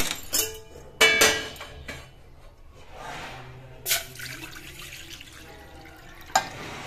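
A steel saucepan set down on a gas stove's grate with a ringing metal clang about a second in, then water poured from a steel cup into the pan in a steady splashing stream, with a short knock near the end.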